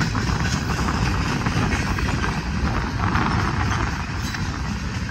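A passing freight train's cars (covered hoppers and tank cars) rolling by close up: a steady rumble and clatter of steel wheels on the rails.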